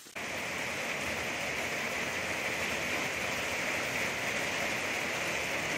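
Steady rain falling, an even hiss that starts abruptly just after the beginning and holds without a break.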